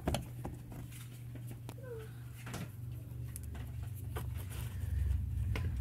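Screwdriver backing a Phillips screw out of a plastic inner fender liner: scattered small clicks and scrapes over a steady low hum, with a brief falling whine about two seconds in.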